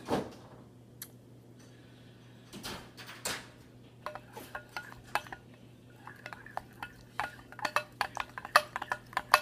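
Spoon stirring glue and pink colouring in a bowl: a few scrapes at first, then a quickening run of clinks as the spoon knocks against the side of the bowl.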